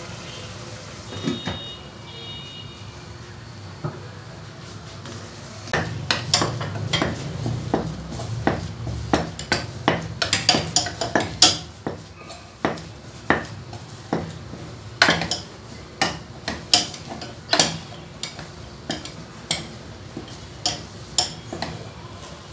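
A cooking spoon stirring and pressing thick ugali in an aluminium pot, knocking and scraping against the pot's side in an uneven run of sharp clicks, which come thick and fast from about six seconds in.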